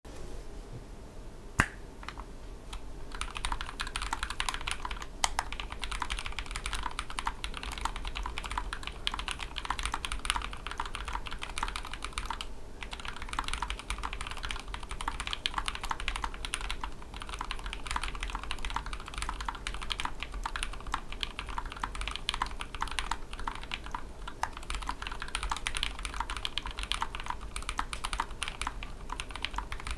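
Fast, continuous typing on a custom 60% mechanical keyboard with lubed tactile 'Greetaliaz' switches (Aliaz housings, Halo Clear stems, Greetech Blue leaves, 68 g springs) in a tray-mount case with a carbon-fibre plate. A single sharp click comes about a second and a half in. The typing starts about three seconds in, with a brief pause near the middle, over a low steady hum.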